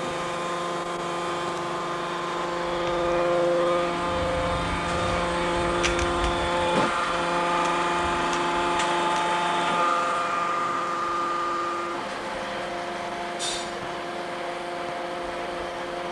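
An engine or motor running steadily with a constant pitched hum. There are a few sharp clicks about six and seven seconds in, and a short hiss near the end.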